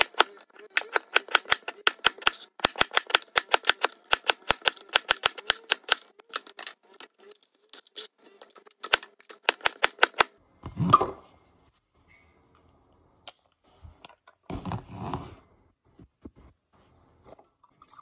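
Kitchen knife slicing burdock root on a cutting board: quick, even crisp cuts, several a second, for about ten seconds. Then a louder short noise about eleven seconds in and another a few seconds later.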